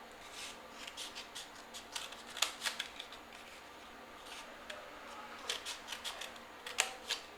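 Scissors cutting through a flattened cardboard toilet-paper tube: a scattering of short snips and clicks, one run about two seconds in and another near the end.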